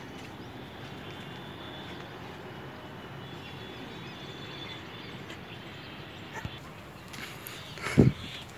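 A dog barks once, loudly, about eight seconds in, over a steady background hiss.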